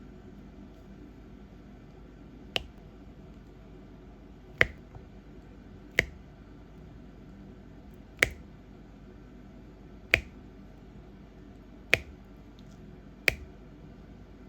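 Sharp single clicks, seven in a row, each about one and a half to two seconds apart, over a faint steady hiss.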